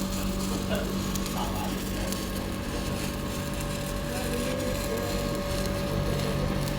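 Stick welding arc on a pipe weld crackling and sizzling steadily, over a constant electrical hum.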